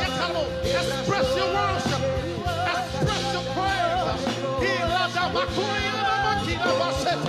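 Live gospel worship music: a singer's wavering vocal lines over a band with a long held note and a steady bass.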